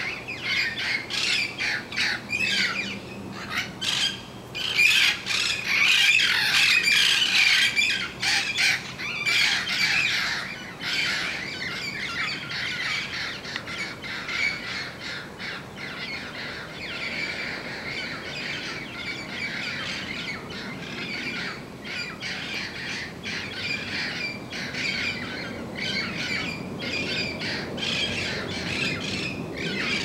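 A flock of red-crowned amazon parrots squawking, many harsh calls overlapping without a break, loudest in the first ten seconds or so.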